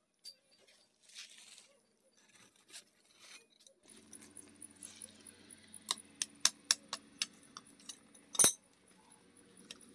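Hammer striking a cold chisel that cuts a steel bike sprocket on an anvil: sharp metallic clinks, about three a second, from about six seconds in, the loudest one near the end. A steady low hum starts about four seconds in beneath the strikes.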